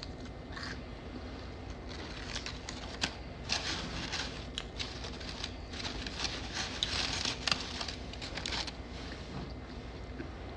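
Close-miked chewing of fried catfish: a run of crisp crackling and clicking mouth sounds, thickest from about three to nine seconds in.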